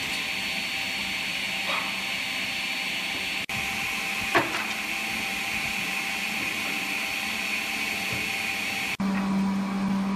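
Woodworking machinery running steadily: a sliding table saw's motor and blade spinning, with a brief falling squeak about four seconds in. Near the end the sound changes abruptly to a steadier low hum from a conveyor-fed surfacing machine.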